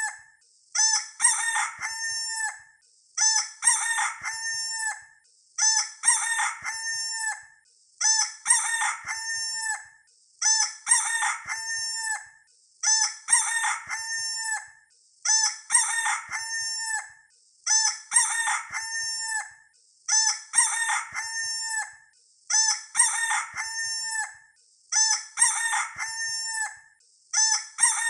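Rooster crowing cock-a-doodle-doo, the identical crow repeated about every two and a half seconds as a sound-effect loop, about twelve times.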